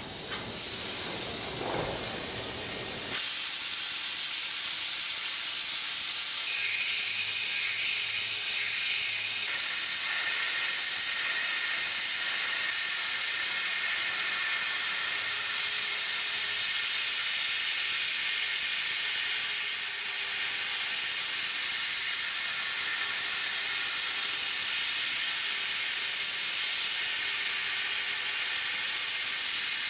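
Tongtai SH-5000P horizontal machining center cutting inside a bore in a metal block, with a steady, high hiss of coolant spray over the machining. There is a lower machine sound in the first three seconds that then drops away.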